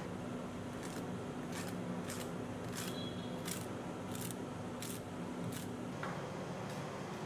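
Steel spatulas striking the metal cold plate of a rolled-ice-cream maker, about seven sharp taps each less than a second apart, as ingredients are chopped or spread. A steady low hum runs beneath and stops about six seconds in.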